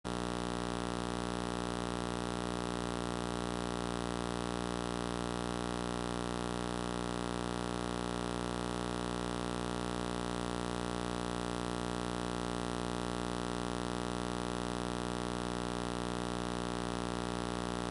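Steady electrical mains hum, a buzz with many overtones, unchanging throughout.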